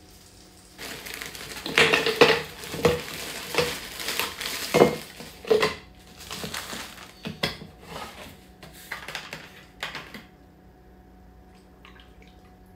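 Strawberry and banana pieces tipped from a zip-top bag into a plastic blender cup: a run of irregular clattering knocks and clicks that stops about ten seconds in.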